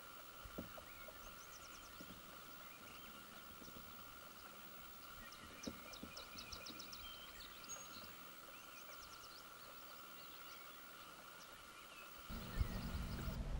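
Moose wading through shallow lake water with faint scattered splashes, while small birds sing quick high trills several times. About twelve seconds in, the splashing becomes louder and steadier as the moose breaks into a trot through the water.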